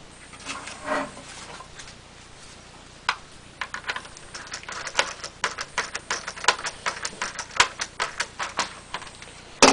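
Screwdriver driving a screw back into the control-panel housing of a Masterbuilt electric smoker. From about three seconds in it makes a run of sharp, irregular clicks, a few a second, and ends with a louder knock.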